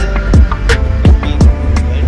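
Background music with a steady beat of deep kick drums and sharp percussion hits.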